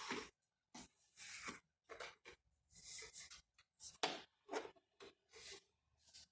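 Faint short scraping rubs, about a dozen in a row, of a computer mouse being pushed and tugged across the desk while its cable is snagged under the PC case.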